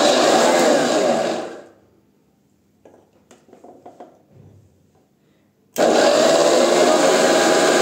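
Electric mixer-grinder with a steel jar grinding boiled amla into a paste with no water, run in pulses. It is switched off about a second and a half in and winds down, a few faint clicks follow in the pause, and it starts again abruptly near the end.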